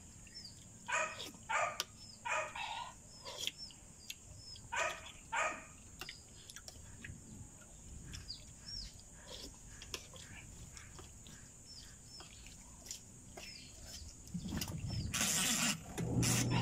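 A dog barks several times, short separate barks in pairs, in the first six seconds. Small high bird chirps repeat throughout. Near the end a louder rushing noise comes in, followed by a steady low hum.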